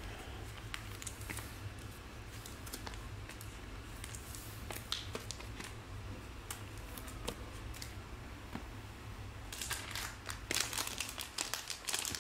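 Plastic foil trading-card pack being handled, with sparse light crinkles and ticks, then a denser run of crinkling and rustling in the last few seconds as the wrapper is worked open. A low steady hum sits underneath.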